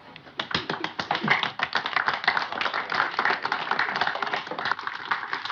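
Audience applauding: many hands clapping, beginning with a few scattered claps shortly after the start and thickening into full, steady applause within about a second.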